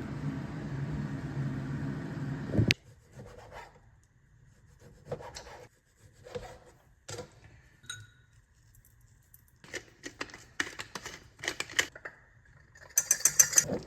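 Kitchen food-prep handling sounds: scattered light knocks, rubbing and scraping of utensils and ingredients, with a quick run of sharp clicks near the end. A steady low rumble for the first couple of seconds cuts off abruptly.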